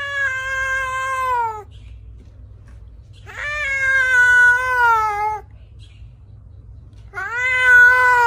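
A cat meowing three times: long, drawn-out meows, each sliding down in pitch at the end.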